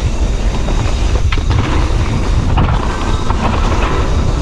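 Mountain bike (Santa Cruz Bronson) rolling over a dirt trail: a steady, rough rumble of the tyres on the ground mixed with rattling from the bike, loud on the microphone.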